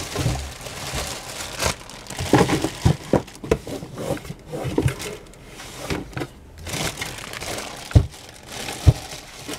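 Thin plastic bags crinkling and rustling as they are handled and pulled from a cardboard box, with two sharp knocks about a second apart near the end.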